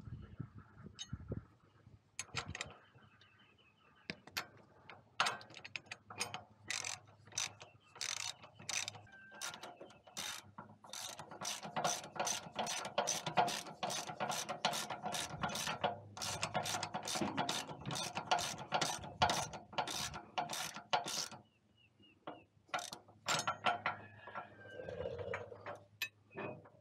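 Socket ratchet clicking in runs of quick strokes, with short pauses between runs, as a 16 mm bolt is tightened.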